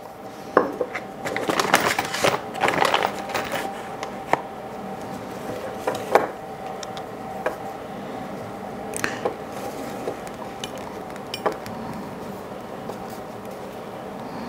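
Hands handling a leather strap and a small copper rivet: rustling and light clicks, busiest in the first few seconds, then a handful of scattered single clicks as the rivet post is fitted through the holes.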